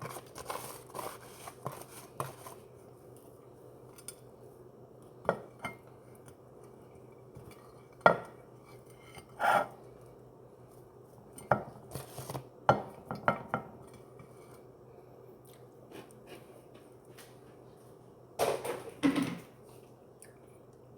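Intermittent clinks, taps and short scraping rustles of a glass dish and utensils being handled, with quiet stretches between them, while chicken tenderloins are dipped in crushed Cheetos.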